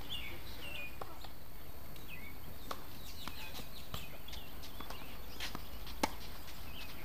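Tennis serve: a racket strikes the ball once with a sharp pop about six seconds in. Before it come fainter scattered knocks and short bird chirps over a steady outdoor background.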